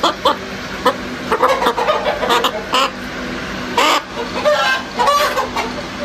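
Chickens clucking and squawking in a string of short calls, with a louder harsh squawk about four seconds in.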